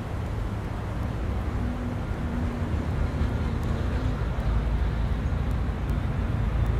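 Steady low outdoor background rumble, with a faint hum from about one and a half to four seconds in.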